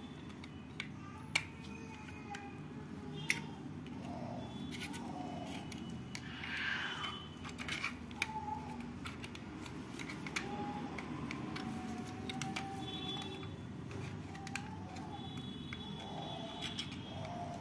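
Scattered sharp clicks and light scraping of small hand tools against a battery charger's plastic case and circuit board as it is taken apart.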